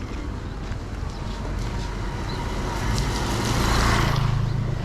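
Street traffic: a motor vehicle's engine running, growing louder to a peak about four seconds in and then easing off.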